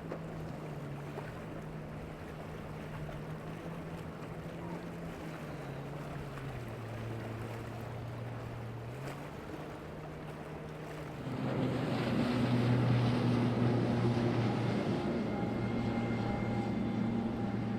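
Motorboat engines running, their pitch dipping and rising with the throttle. About eleven seconds in, a louder engine and a rush of water and spray noise take over.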